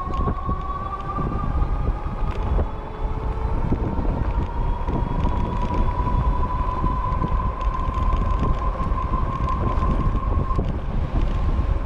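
E-bike hub motor whining at a steady pitch over heavy wind rumble on the microphone, and the whine stops near the end. The fat street tires add hardly any rolling noise.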